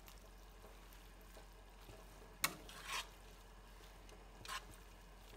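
Metal tongs tossing spaghetti and shrimp in a pan of garlic butter sauce over a faint, steady sizzling hiss. A sharp clack of the tongs on the pan comes about two and a half seconds in, with a couple of softer scrapes after.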